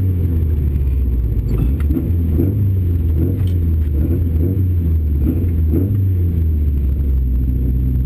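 Opel Kadett GT/E rally car's four-cylinder engine heard from inside the cabin, running at low revs as the car creeps forward. It settles into a steady idle near the end.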